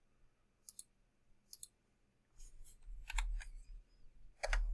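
Computer mouse clicks and keyboard key presses: a few separate clicks, then quicker clusters of key taps near the end.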